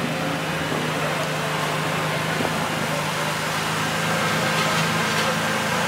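Turbocharged Nissan SR20 four-cylinder engine with a large aftermarket turbo idling steadily.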